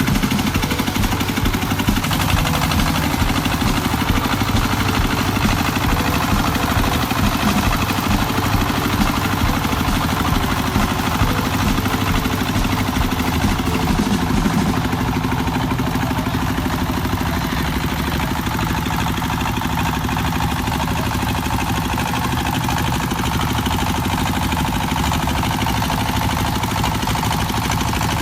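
Farm vehicle's engine running steadily, with a dense, even chug throughout.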